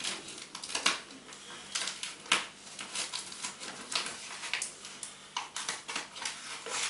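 A run of irregular short clicks and light taps, several of them sharper, like small hard objects being handled.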